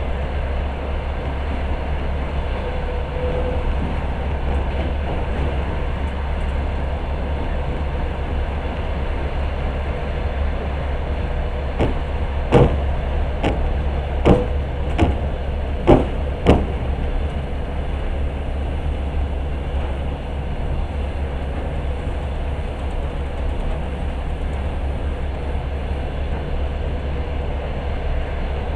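Passenger train running at speed, a steady low rumble heard from on board. From about twelve to seventeen seconds a run of about seven sharp knocks comes from the wheels on the track.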